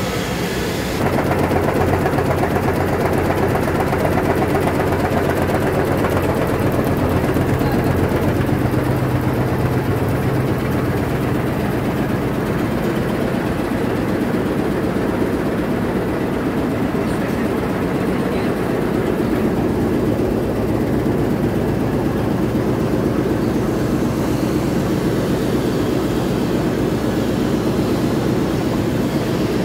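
Tea-processing machinery running steadily: a loud, continuous mechanical drone with a low hum.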